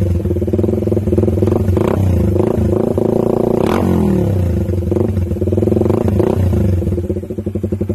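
Suzuki Raider 150 carburetted single-cylinder four-stroke engine running through a Charama 9 conical open exhaust, loud, with short throttle blips that rise and fall back. Near the end it settles to a slower idle whose separate exhaust pulses can be heard.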